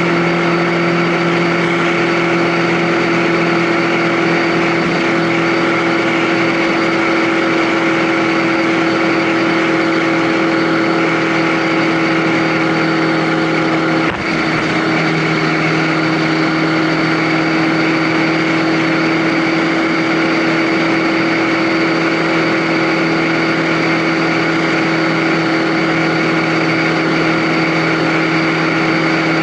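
A vehicle engine and road noise hold a steady cruising speed. About halfway through there is a brief dip, where the engine note drops slightly and then settles back.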